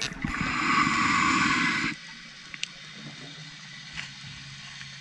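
A diver's exhaled breath bubbling out for about two seconds, then quieter underwater ambience with a faint low hum and a few isolated clicks.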